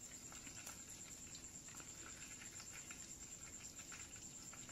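Faint irregular crackling and spitting of hot butter in a small steel tadka ladle held over a gas flame, the butter fully melted and heated for the tempering. A steady high-pitched whine runs underneath.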